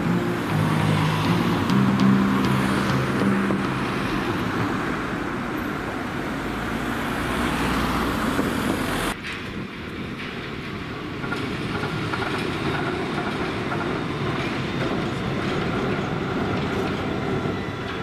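City street traffic, a steady rushing noise of passing vehicles, with the tail of the intro music ending a few seconds in. About nine seconds in it cuts abruptly to a quieter street ambience.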